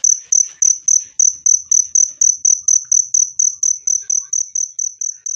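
Cricket chirping loud and clear: short high-pitched chirps repeated evenly, about four a second.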